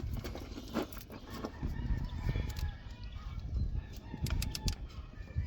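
3/8-inch drive ratchet with a 13 mm socket working on tight starter mounting bolts: scattered clicks and knocks, then a quick run of ratchet clicks about four seconds in.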